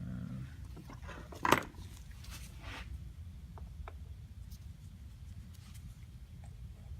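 Small carburetor parts and a screwdriver being handled at a workbench: one sharp clack about a second and a half in, then light rustling and a few faint small clicks.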